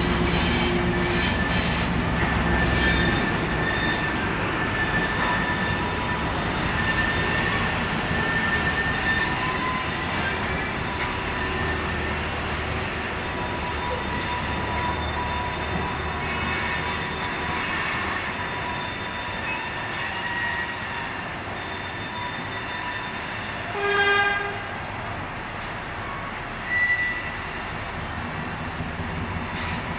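End-cab diesel switcher locomotive running slowly with freight cars, its wheels squealing steadily on curved track over a low engine rumble that is strongest in the first few seconds. The horn gives one short toot about three-quarters of the way through, followed a few seconds later by a brief higher squeal.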